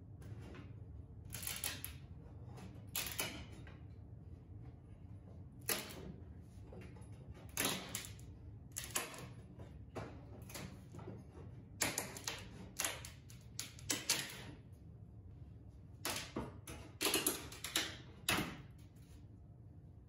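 A pry bar breaking loose the wooden edge trim and ceramic tiles of an old tiled countertop: irregular sharp cracks, clacks and scrapes, well over a dozen, coming in quick runs through the second half.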